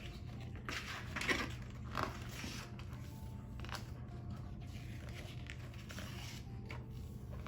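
Faint paper rustling and light handling of a picture book as its pages are turned, a few soft rustles and ticks over a steady low hum.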